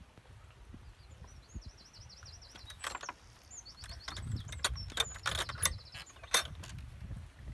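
Latch of a wooden field gate clicking and rattling as it is worked open: a run of sharp metallic clicks from about three seconds in. Earlier, a small bird sings a fast high trill.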